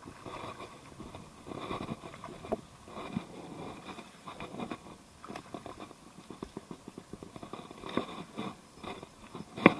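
A hooked bass splashing and thrashing at the surface beside the bank as it is reeled in, with scattered clicks and scrapes and one sharp knock near the end.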